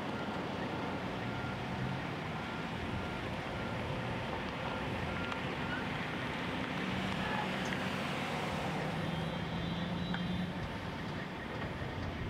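Construction machinery running steadily, with a low engine hum, and a faint repeating motion-alarm beep sounding over it.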